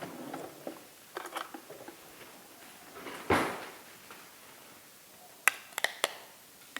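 Kitchen bowls and utensils being handled as diced onion is moved over to the steaming bowl: a few light rustles and knocks, a louder dull knock about three seconds in, and a quick run of four sharp clinks near the end.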